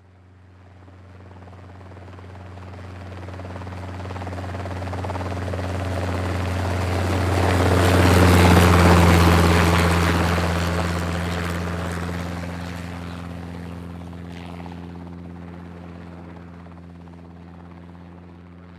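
Mil Mi-24 helicopter flying in and past. Its steady low rotor and engine hum swells to its loudest about halfway through, then slowly fades.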